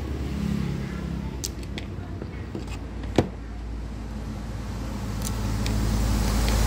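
Sharp little clicks and taps of plastic parts as a cheap cordless drill's housing and collar are handled and pried at, about seven in all, the loudest a bit past three seconds in. Under them runs a low steady rumble that grows louder near the end.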